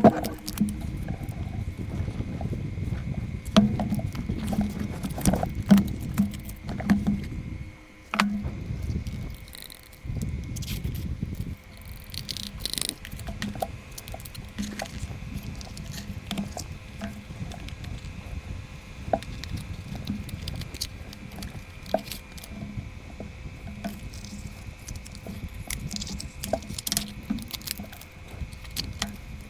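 A gaming mouse's box and packaging handled and opened: many small clicks, taps and rustles of cardboard and plastic, with heavier handling rumble in the first several seconds. A faint steady whine runs underneath.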